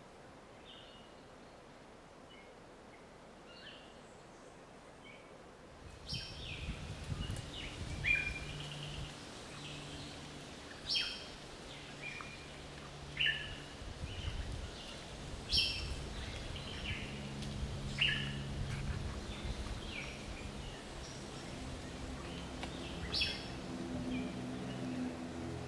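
Birds calling in forest: faint chirps at first, then, about six seconds in, louder short sharp calls repeated every two to three seconds, over a low rumble.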